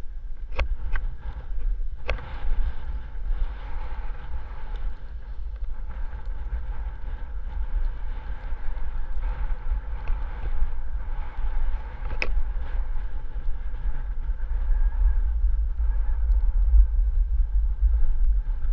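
Wind rumbling on the microphone, with a few sharp clicks in the first two seconds and another about twelve seconds in.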